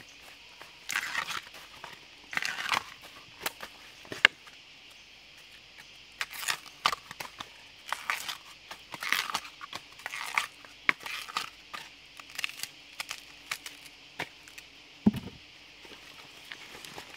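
Husk sheaths being torn and peeled off a freshly cut wild bamboo shoot: irregular rustling tears with a few sharp clicks, and one dull knock near the end.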